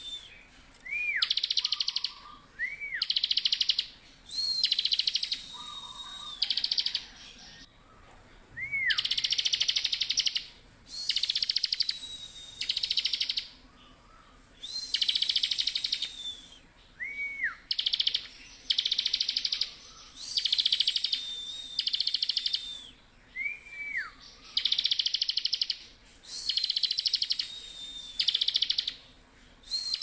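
Bar-winged prinia (ciblek) in full song: rapid buzzy trills, each about half a second to a second long, repeated every second or two. Between them come thin level whistles that drop away at the end, and short notes that arch up and fall steeply.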